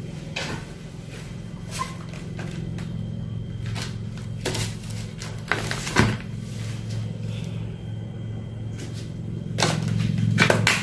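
Groceries being handled on a stone countertop: plastic-wrapped packages rustling and being picked up and set down with scattered knocks, the sharpest about six seconds in and a quick cluster near the end, over a steady low hum.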